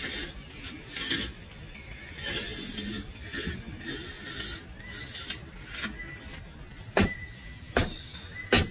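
Pallet wood being cut with a hand saw in repeated rasping strokes, then three sharp hammer knocks, one every second or less, starting about seven seconds in.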